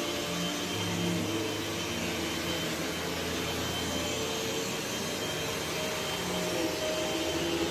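Vacuum cleaner running steadily while pushed over carpet, its motor hum wavering slightly in pitch.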